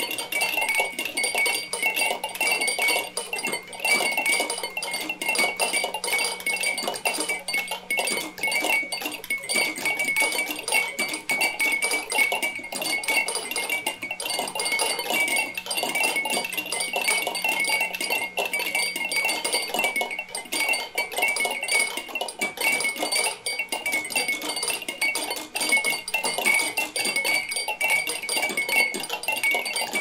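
A crowd of several hundred drinking-bird toys bobbing at once: a dense, unbroken clatter of tiny glassy clinks with a faint bright ringing.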